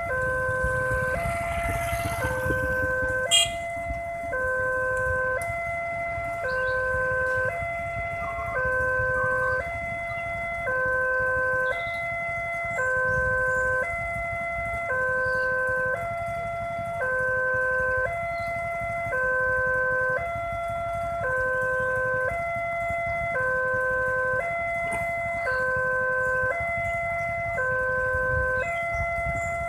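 Railway level-crossing warning alarm of the newer electronic kind, switching back and forth between two chords about once a second. A low rumble runs underneath, with one sharp click a few seconds in.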